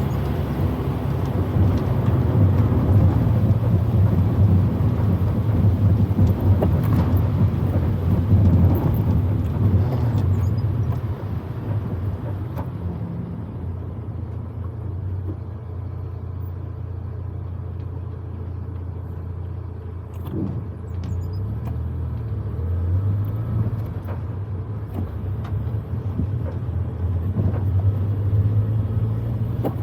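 Proton Wira 1.5 manual's four-cylinder engine droning under load with road noise, heard from inside the cabin while driving. The engine and road noise ease off after about eleven seconds and build again over the last third.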